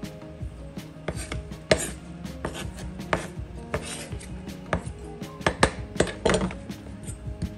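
Kitchen knife chopping vegetables on a cutting board: a run of irregular quick strokes, a few of them louder.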